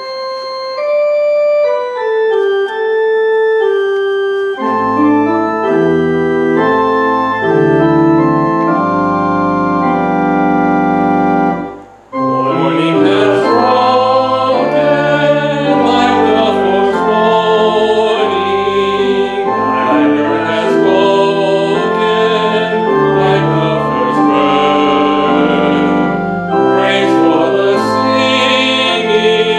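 Church organ playing a hymn: a lone melody line for the first few seconds, then the bass enters under held chords. After a short break about twelve seconds in, the organ resumes with singing over it.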